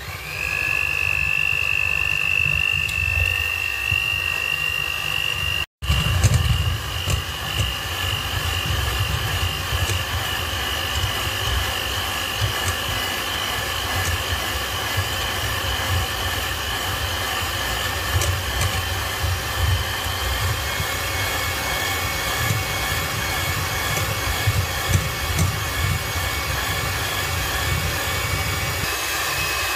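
Electric hand mixer running steadily with a high motor whine, its twin beaters whipping cold whipping cream and milk into chantilly in a stainless steel bowl. The sound cuts out for a split second about six seconds in.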